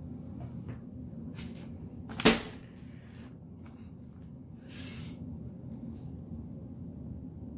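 Handling noise around an opened laptop: one sharp knock about two seconds in, then a few faint clicks and short rustles over a steady low hum.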